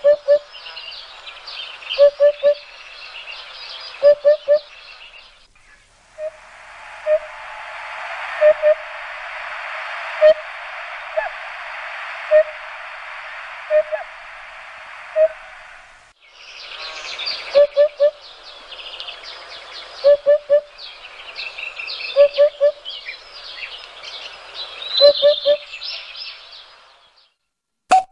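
Woodland birdsong: a low hooting call repeated in groups of two or three about every two seconds over a busy chorus of small birds' chirps and trills. From about six seconds to sixteen seconds the chirps give way to a steady rushing noise, with the low call sounding singly about once a second.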